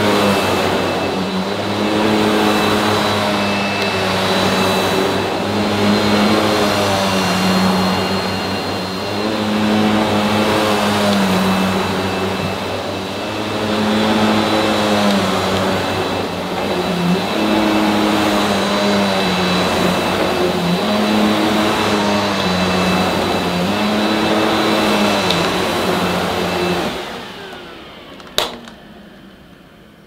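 Vacuum cleaner motor running on carpet, its pitch rising and falling every couple of seconds with a steady high whine above it. Near the end it is switched off and winds down, and a single click follows.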